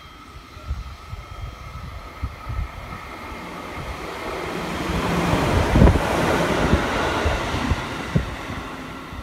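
Electric multiple-unit train passing along the platform without stopping. Its running noise swells to a peak about six seconds in and then eases off, with wind buffeting the microphone.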